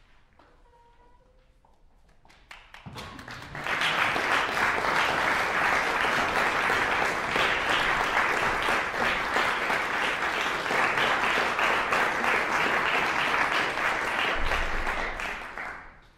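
Audience applauding, starting about three seconds in, swelling to full strength within a second, holding steady and dying away near the end.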